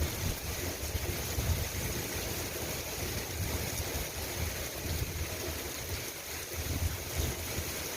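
Steady rain falling, an even hiss, with a low, uneven rumble underneath that is strongest at the start and eases off after about a second.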